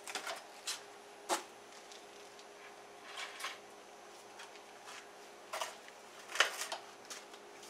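A few light knocks and clicks of objects being picked up and handled, at irregular intervals, the sharpest a little over six seconds in.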